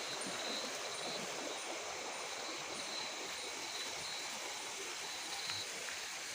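Night-time outdoor ambience: a steady hiss with a faint, high insect chirp repeating a little under twice a second.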